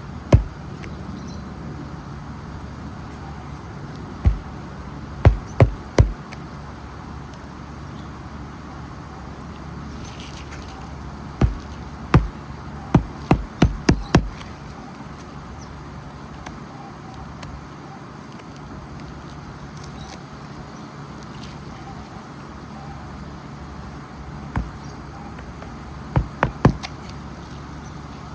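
Hammer driving roofing nails into an asphalt shingle: about fifteen sharp strikes in short clusters of one to four blows, several seconds apart, over a steady background hiss.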